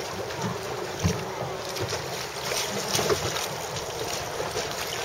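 Wind buffeting the microphone in gusts, over water lapping on a small sailing dinghy.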